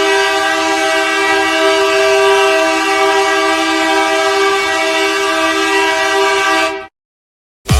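Ice hockey goal horn blaring one long, steady two-note chord, which cuts off sharply about seven seconds in. After a brief silence, dance music with a heavy beat starts right at the end.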